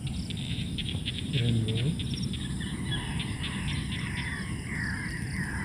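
Insects and birds calling. A rapid train of high chirps runs for the first two seconds or so, then wavering, warbling calls follow, over a low steady background rumble.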